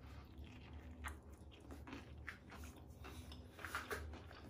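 A person biting into a stuffed chicken kebab wrap and chewing the mouthful: faint, irregular crunching from the wrap and its fresh fillings, a little louder near the end.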